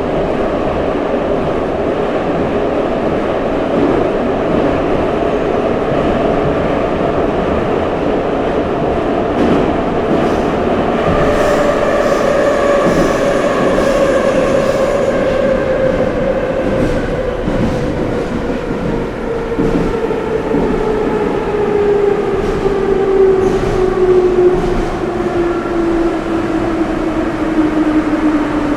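Ezh3 Moscow metro train running through a tunnel, heard from inside the car. Its traction motors whine in a tone that falls steadily in pitch through the second half as the train slows. A run of sharp clicks comes about ten seconds in.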